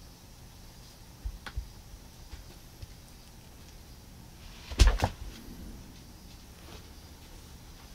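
A few soft thumps and a rustle on a carpeted floor as a cat plays with a feather toy and flops down beside it. Two light thumps come early, and a much louder thud comes about five seconds in.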